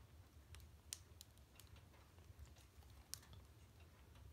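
Near silence with a few faint, irregular clicks and crackles from a wood fire burning in a stove, over a faint low rumble.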